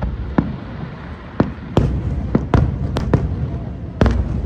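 Aerial fireworks shells bursting: a string of sharp bangs at irregular intervals over a low rolling rumble, with several close together in the middle.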